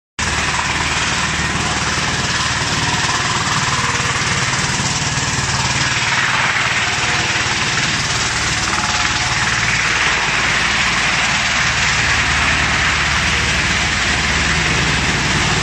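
Industrial wood chipper running and chipping fresh branches: a continuous loud mechanical din with a low hum beneath a dense grinding hiss. The din swells a little in the middle of the stretch.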